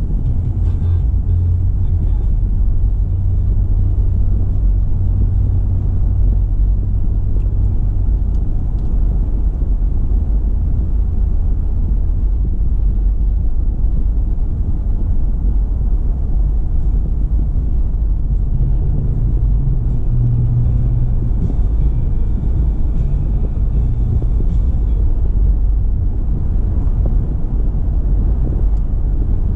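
Car driving along, with a steady low rumble of road and engine noise. A low hum shifts up slightly in pitch for a few seconds past the middle.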